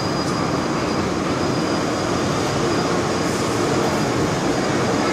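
Steady running noise inside an MTR M-Train subway car in motion: wheels on the rails and the car's equipment, with a faint high steady whine over it.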